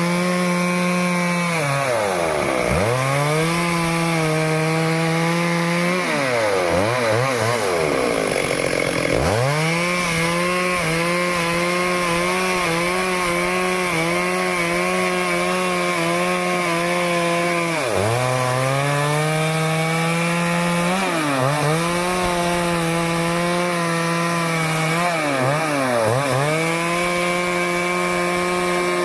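Stihl two-stroke chainsaw running at high speed through teak wood. Its engine note dips and climbs back several times, most deeply a few seconds in and again around the seven-to-nine-second mark.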